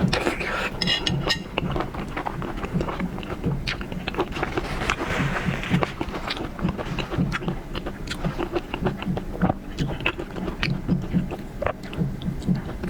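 Close-up eating sounds of seafood: irregular chewing, crunching and small wet mouth clicks.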